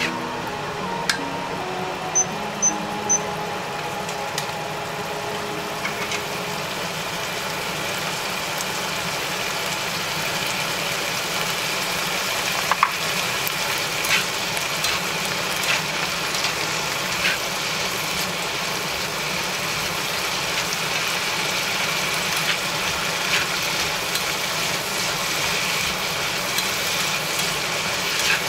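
Sliced vegetables sizzling in oil in a frying pan as they are stir-fried: a steady hiss that builds slightly, with occasional clicks of the spatula against the pan.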